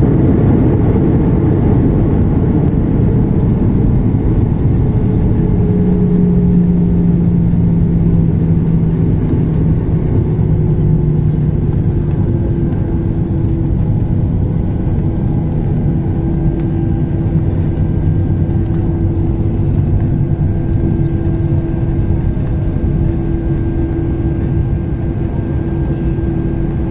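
Boeing 737 cabin noise during the landing rollout: a loud, rushing rumble of engines and runway that eases slowly as the airliner slows. A low engine hum and a higher engine tone drop a little in pitch in the first seconds, then hold steady.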